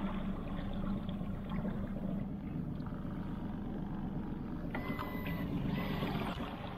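Small skiff's outboard motor running steadily at low speed, pushing the boat along with water rushing past the hull.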